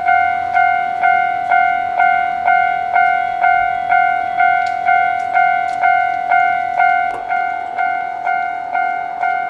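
Japanese railroad crossing's electronic warning bell ringing, a single repeated tone struck evenly about twice a second: the crossing's alarm, signalling that a train is approaching.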